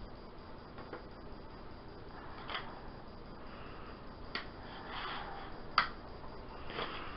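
Faint handling noise of wooden clothespins being set around a plastic tray: a few light clicks and soft rustles, with one sharper click a little before six seconds in.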